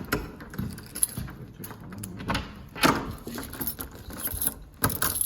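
A bunch of keys jangling, with scattered, irregular clicks and knocks.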